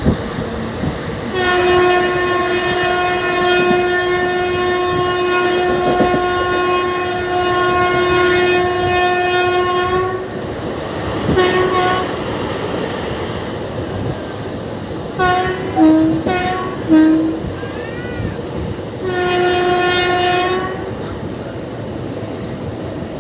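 Train horn: one long blast lasting about eight seconds, then a brief toot, a cluster of short toots at two pitches, and another blast of about a second and a half near the end. Under it runs the steady rumble and clickety-clack of the moving train.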